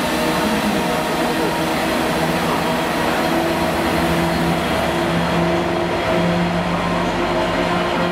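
Class 66 diesel locomotive's two-stroke V12 engine running as it rolls slowly past at close range. Its steady engine note grows stronger about halfway through.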